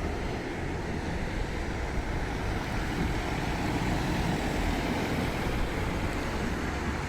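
Steady road traffic noise from cars passing nearby, an even rumble with no single vehicle or horn standing out.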